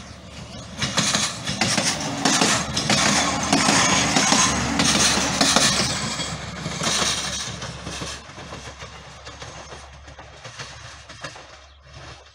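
Ex-Deutsche Bahn Class 628 diesel multiple unit passing close by, its diesel engine and wheels on the rails growing louder to a peak about four to six seconds in, then fading as it runs away.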